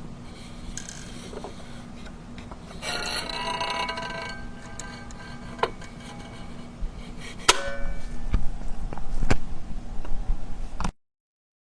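Rubber duck squeaked once in a drawn-out squeak, followed by several sharp clicks and knocks of the toy being handled, over a steady low hum; the sound cuts off suddenly near the end.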